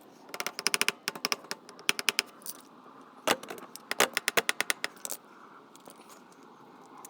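Ratchet spanner clicking in quick runs, several bursts of rapid metallic clicks with short pauses between.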